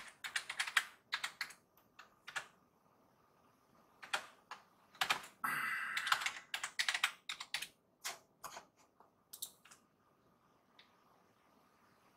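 Typing on a computer keyboard: runs of quick keystroke clicks separated by short pauses, with a brief rush of noise about five seconds in, thinning out to a last stray key near the end.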